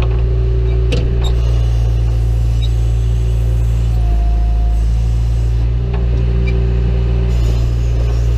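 John Deere 310E backhoe's diesel engine running steadily under digging work, with a couple of short knocks about a second in and a brief whine about four seconds in.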